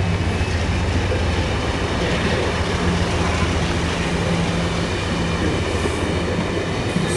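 Amtrak passenger train's stainless-steel Amfleet coaches rolling past close by: a steady rumble of wheels on the rails with a low hum underneath.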